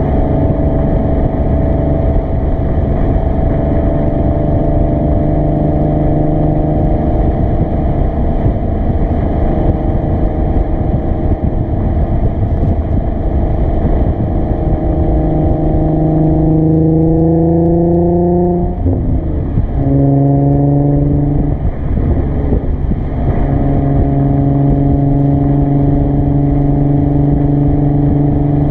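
Exhaust note of a 2013 Nissan 370Z's 3.7-litre V6 through a Motordyne cat-back exhaust, heard at the tailpipe while driving. It holds a steady cruising drone, then about halfway the pitch climbs under acceleration, drops abruptly, climbs again briefly and settles back to a steady cruise near the end.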